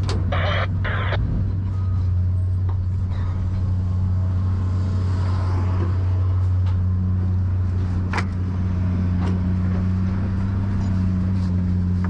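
Truck engine running with a steady low drone. Two short rattles come about half a second in, and a sharp click a little after eight seconds.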